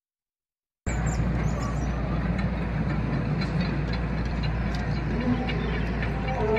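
Silence for just under a second, then a steady low rumble of outdoor background noise cuts in abruptly and holds level; no lion roar is heard yet.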